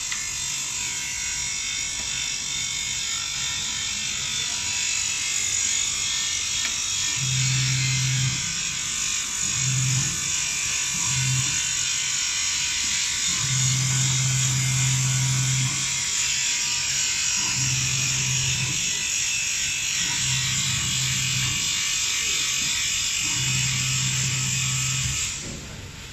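Enclosed fiber laser marking machine running with a steady high hiss that cuts off near the end. A low electric-motor hum starts and stops in stretches of half a second to two seconds as the motorized cover is driven up and down.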